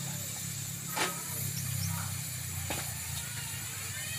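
Mangrove clams roasting on a corrugated metal sheet over a wood fire, hissing and bubbling as their juices boil out of the shells. A sharp pop comes about a second in and another near three seconds, over a low steady rumble.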